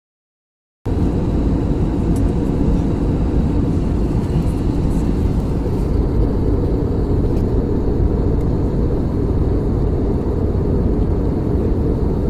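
Steady cabin noise of a jet airliner in flight, the even rush of engines and airflow, heaviest in the low range. It starts abruptly just under a second in, after a moment of silence.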